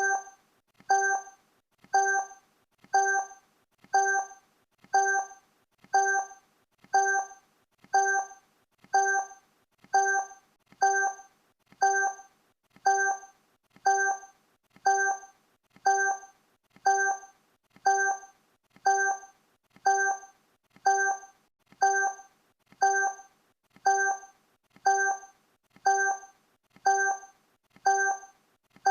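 Countdown timer sound effect: a short, pitched blip once every second, each one starting sharply and dying away quickly, marking off the seconds.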